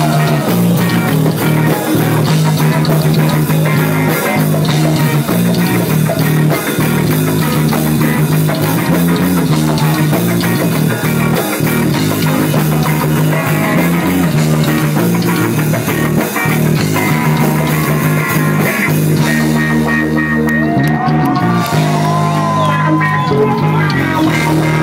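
A live rock band playing loud, with electric guitars and a drum kit, as picked up by a phone's microphone. Near the end, a high line with pitch bends rises above the band.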